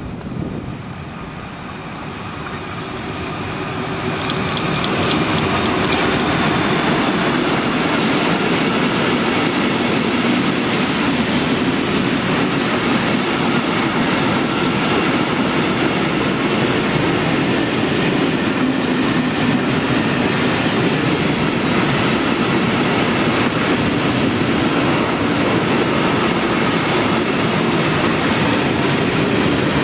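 A freight train of silo tank wagons passing close by. The rolling noise grows over the first few seconds as the locomotive comes up, then holds as a steady loud rumble and clatter of wheels on the rails while the wagons go past.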